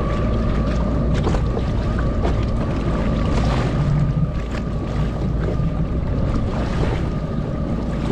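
A jet ski sitting on the open sea, with a steady hum from its idling engine, water slapping against the hull and wind on the microphone.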